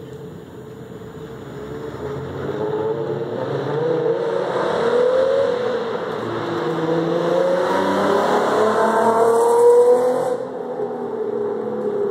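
Nissan 300ZX (Z32) V6 with a Stillen header, resonated test pipes, a custom X-pipe with Veilside resonators and a Veilside Evolution axle-back exhaust, driven past under about three-quarter throttle. The exhaust note rises, dips and rises again as it grows louder. It peaks about ten seconds in, then drops sharply.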